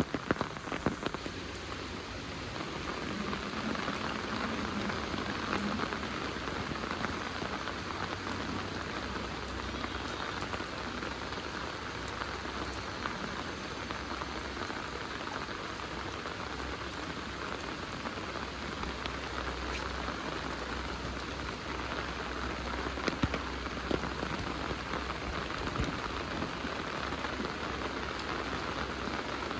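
Heavy rain falling steadily, with a few sharper drop taps in the first second.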